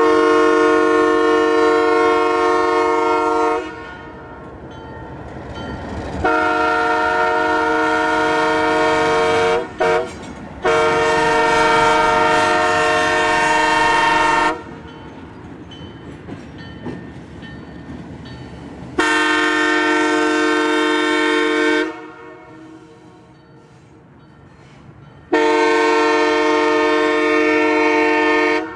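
Multi-chime locomotive air horn sounding a series of long blasts, five in all. Each blast is a steady chord lasting three to four seconds, with pauses between them. There is a short double toot just before the third blast.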